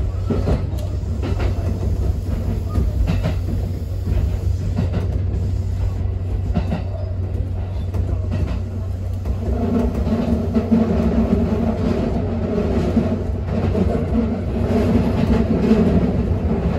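Kintetsu electric train running along the track, heard from inside the front car: a steady rumble with wheel clicks over the rail joints. About halfway through, a louder hum joins in.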